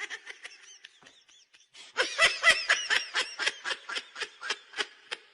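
Laughter in a run of short, high-pitched bursts, about four a second, growing louder about two seconds in.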